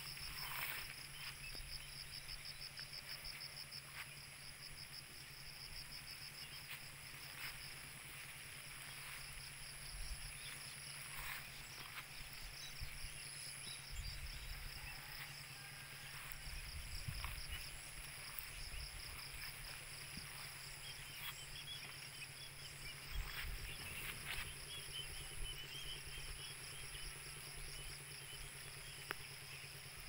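Insects trilling steadily: a fast pulsing high trill and a higher, thinner steady buzz, with a few faint high chirps partway through and now and then a low rumble of wind on the microphone.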